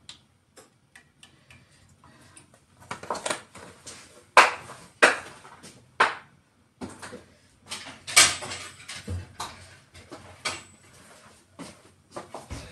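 Kitchen clatter: irregular knocks and clinks of utensils and containers being handled and set down, with the loudest strikes about four to six seconds in and one about eight seconds in.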